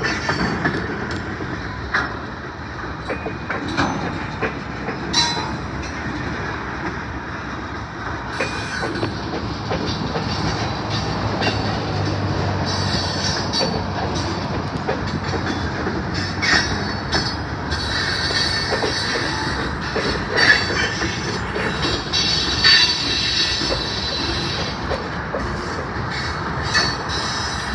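Freight train of lumber-loaded centerbeam flatcars rolling slowly past, with irregular wheel clacks and clanks over the rails. A high-pitched wheel squeal comes and goes, stronger in the second half.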